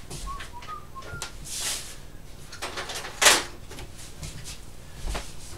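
Someone moving about off the bench, handling things: scattered clicks and rustles with a few short faint squeaks in the first second, a brief scrape about one and a half seconds in, and a louder sharp knock a little past three seconds in.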